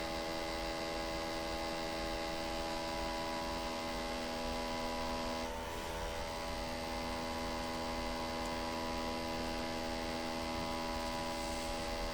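Steady electrical hum with many overtones, briefly dipping about five and a half seconds in.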